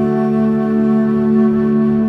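Background music: a calm, new-age-style instrumental with long held notes.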